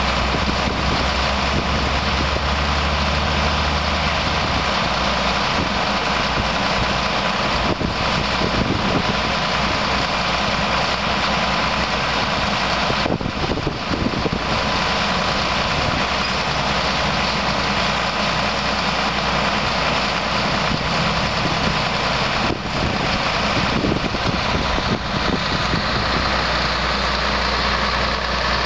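The sprayer's Cat C7 diesel engine idling steadily.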